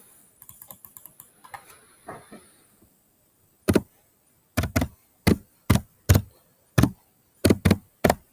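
Typing on a computer keyboard: a few faint clicks, then about ten separate, loud keystrokes spelling out a single word.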